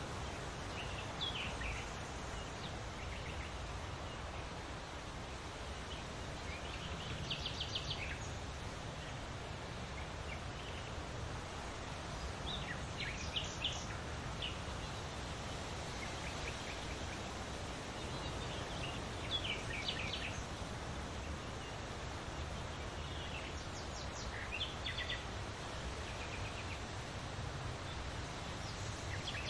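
Songbirds singing in short, high chirping phrases every few seconds over a steady rustle of leaves in the wind.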